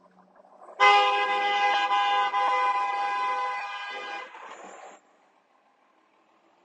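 A vehicle horn sounding in one long steady blast of about three and a half seconds, then trailing off and stopping.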